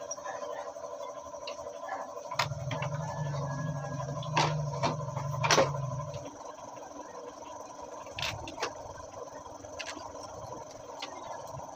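Metal parts of a motorcycle engine clinking and knocking as they are lifted out of the crankcase and set down in a plastic crate, the two loudest knocks near the middle. A low hum runs for a few seconds in the first half.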